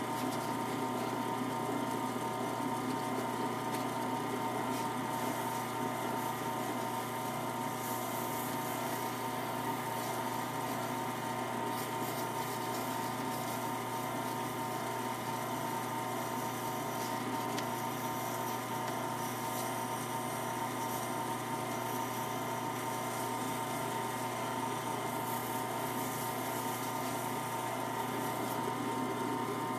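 Small step-pulley wood lathe running steadily, a constant motor hum with several held tones. Faint high scratching comes and goes as hands work the spinning rosewood piece.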